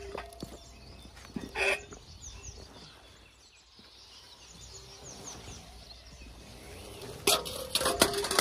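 Birds chirping in the background, with one short loud scrape about one and a half seconds in. Near the end comes a run of sharp knocks and clatter as the pump's suction hose is handled on the stone bank.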